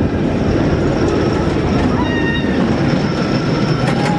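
Chance Rides Hyper GT-X roller coaster train running on its steel track: a loud, steady rumble, with a short high tone about two seconds in.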